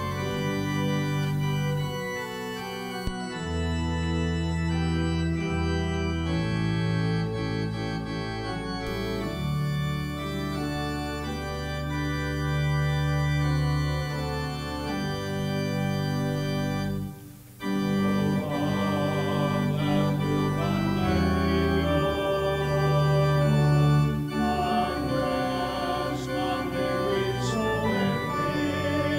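Church organ playing a hymn in sustained chords, with a short break about two-thirds of the way through. After the break, the choir sings along with the organ.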